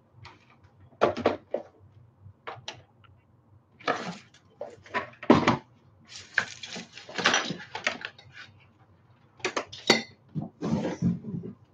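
A plastic-bodied Brother sewing machine being lifted, set down on a wooden table and handled, giving a string of irregular knocks, clunks and rattles.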